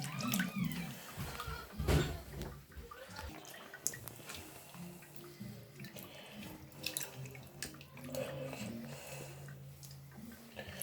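Water sloshing and trickling as a plush toy is soaked and moved about in a small tub of water, with scattered small splashes and drips.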